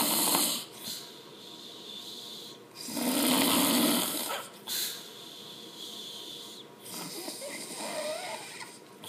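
Loud snoring from a sleeper. One rasping snore dies away just after the start and another comes about three seconds in, lasting over a second, with quieter breathing between.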